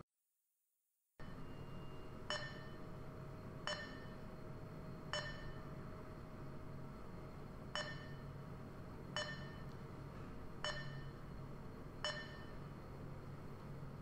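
A coordinate measuring machine taking touch points under CNC control: a short ringing ping as each point is taken, about one and a half seconds apart, in runs of three or four as it measures each circle, over a steady low machine hum. The sound drops out completely for about the first second.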